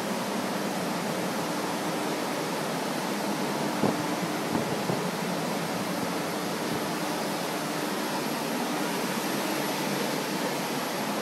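Carpet-drying floor fans running with a steady, even rushing noise, drying out flood-soaked carpet. A few brief knocks come about four seconds in.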